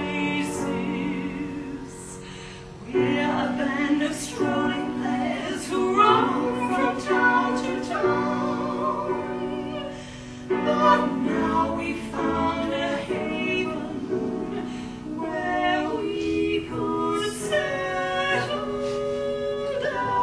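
Women's voices singing a song in harmony, in long held phrases with vibrato, broken by two short pauses, about two seconds in and about ten seconds in.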